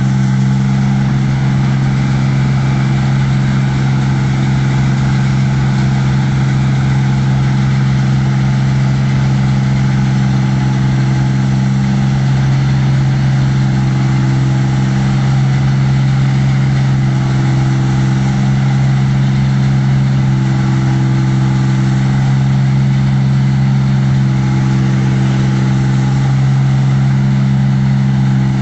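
New Holland 8060 combine harvester running with a steady, even engine drone as it harvests rice.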